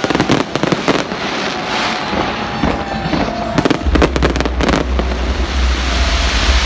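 Fireworks display: rapid crackling bangs of aerial shells over a steady hiss, with a dense run of crackles at the start and another about four seconds in. A low rumble comes in about four seconds in.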